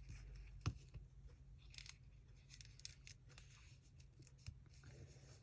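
Faint rustling and light clicks of paper pieces being handled, with one sharper click under a second in.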